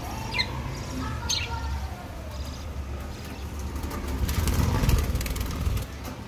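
Budgerigars chirping: two short, sharp chirps within the first second and a half. From about three and a half to six seconds there is a louder stretch of scratchy, rapid rustling, all over a steady low rumble.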